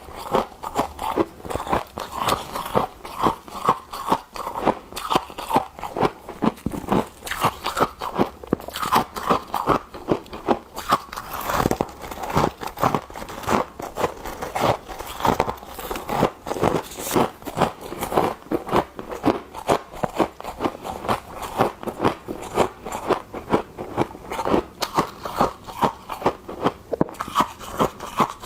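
Crunchy frost being scooped over and over in an even rhythm of about two to three crunches a second.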